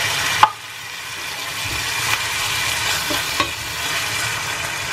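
Canned sardines in sauce, with carrots and broccoli, sizzling in a stainless steel frying pan while a wooden spatula stirs them. A few sharp taps of the spatula on the pan stand out; the first and loudest comes about half a second in.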